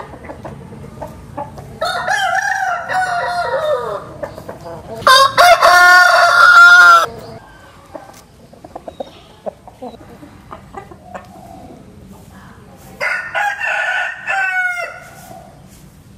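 Rooster crowing three times: a long crow about two seconds in, a louder one just after it, and a third near the end, each falling in pitch as it trails off.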